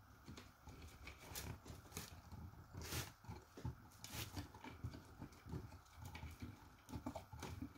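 Faint, irregular crackling and rustling of dry vine strands and floral wire being twisted by hand, with a few sharper clicks.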